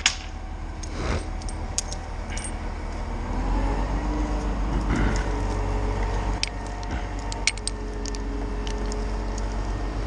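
Mobile crane's diesel engine running steadily, a little louder from about three seconds in, with scattered metallic clinks of the lifting chain and the climber's carabiners.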